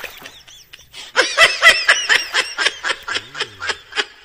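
A person laughing: a long run of short, quick bursts that slow and fade, then cut off suddenly near the end.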